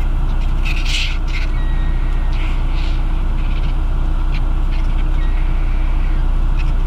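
Squabbling vultures at a carcass giving several short, harsh hisses and squeals, the loudest about a second in, over a steady low engine rumble like a vehicle idling.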